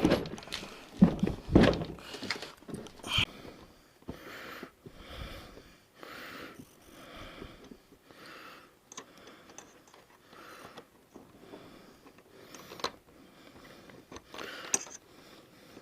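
A few knocks and thumps in the first seconds, then a person breathing audibly in a slow, regular rhythm, with a few small clicks in between.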